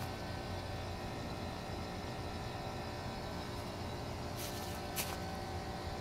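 Trane XB13 central air conditioner condenser unit running: a steady low hum with a few steady tones over an even rush of air from the fan. Two brief hissing swishes come about four and a half and five seconds in.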